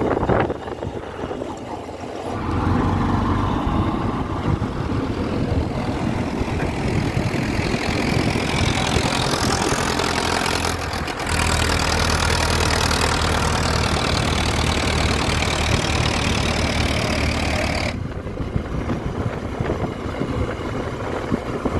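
Diesel engine of a JCB 3DX backhoe loader running under load. It grows louder about two seconds in and again about halfway through, then eases off near the end.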